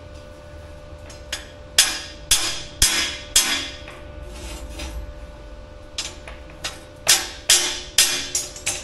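Hammer blows on a steel rebar frame, knocking it over to bring it square. Two runs of sharp strikes about half a second apart, with a pause of a couple of seconds between them.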